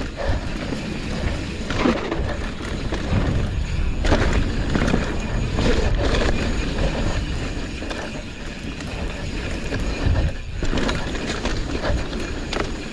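Mountain bike riding fast down a dirt singletrack: a steady rumble of wind and tyre noise, broken by irregular knocks and rattles as the bike goes over bumps.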